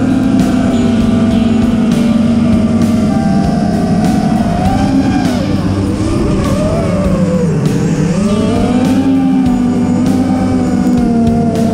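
Racing quadcopter's brushless motors and propellers whining as several steady tones. Near eight seconds in they drop sharply as the throttle is cut, then climb back as it is punched again.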